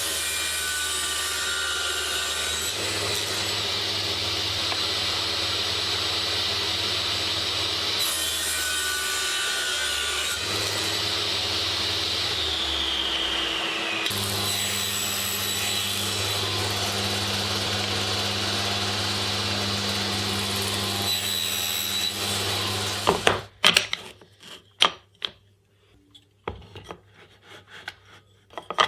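Electric power tool cutting wood, running steadily for over twenty seconds with its sound shifting a few times. It stops about 23 seconds in, followed by a scatter of sharp knocks and clicks.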